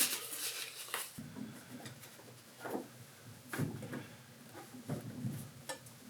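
Scattered light knocks and taps, a handful over a few seconds, as tools and wooden chair parts are handled.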